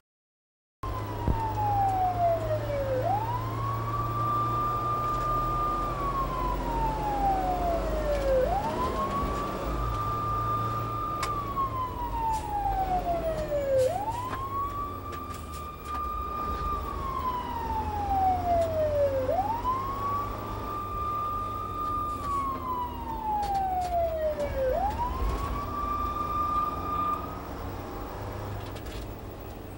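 Emergency-vehicle siren wailing, about every five and a half seconds, five times: it sweeps up quickly, holds high, then slides slowly down. The siren stops near the end. Underneath runs the low rumble of the fire apparatus's engine, heard from inside the cab.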